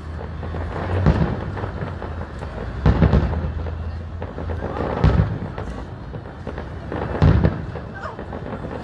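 Aerial fireworks shells bursting in deep booms about every two seconds, four in all, one of them a quick double, each followed by a rolling echo.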